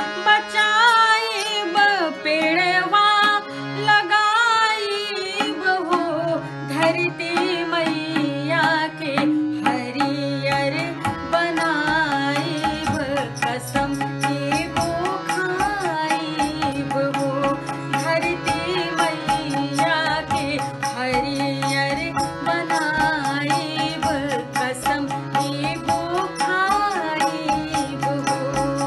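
A woman singing a folk song with wavering ornamented pitch, over instrumental accompaniment; a steady drum beat comes in about six seconds in.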